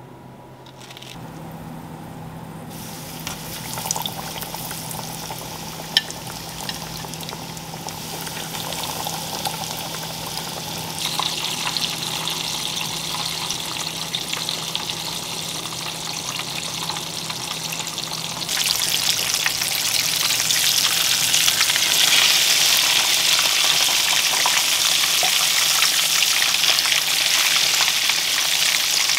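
Breaded fish fillets frying in a pan of hot oil: a steady sizzle, much louder from about two-thirds of the way in. Before that, a fainter hiss over a low steady hum, with a couple of light clicks.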